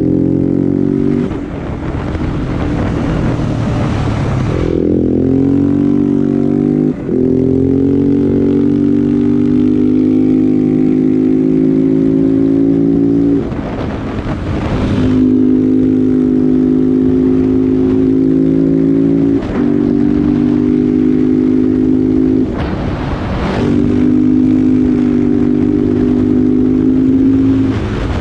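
KTM 690 SMC R's single-cylinder engine running through a LeoVince aftermarket exhaust, holding steady revs with about half a dozen short breaks where the note dips and changes.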